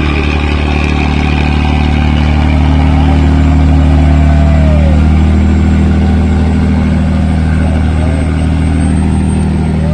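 Riverboat's engine running hard under heavy load: a loud, steady, deep drone that swells slightly a few seconds in, as the boat pushes upstream against rapids.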